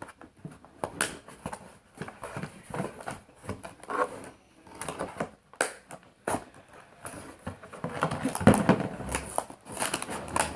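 Handling of toy-blaster packaging: plastic and cardboard rustling and crinkling, with irregular clicks and knocks and a louder stretch of rustling about eight seconds in.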